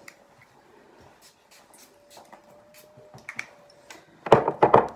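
Perfume atomiser sprayed about four times in quick succession near the end, short loud hisses, after some faint clicks of the bottle being handled.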